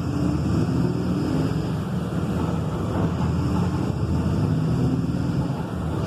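Volkswagen 17.230 EOD diesel engine running steadily, its pitch shifting a little.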